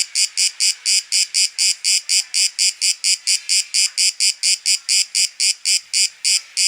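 A cicada singing in a steady run of short, even, high-pitched pulses, about four a second.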